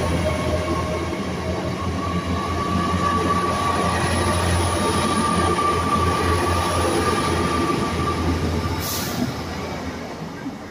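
LNER Class 800 Azuma bi-mode train passing close by: a steady rush and rumble of carriages and wheels on the track, with a steady high tone running through it. It fades over the last second or so as the end of the train goes by.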